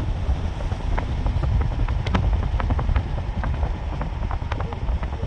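Interior road noise of a Chevrolet Equinox driving on a rough road with a window open: a steady low rumble of tyres and wind buffeting on the microphone, with many small sharp ticks scattered through it.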